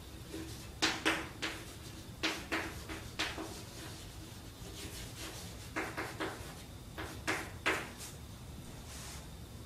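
Chalk writing on a blackboard: short scratching strokes and taps in small clusters, with pauses between them.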